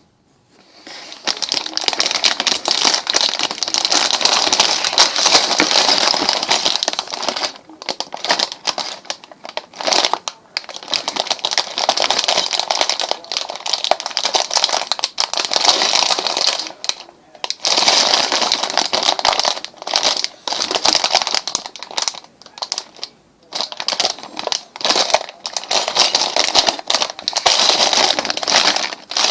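Packaging of a Lego Technic set crinkling and rustling as it is handled, in long stretches of several seconds broken by brief pauses.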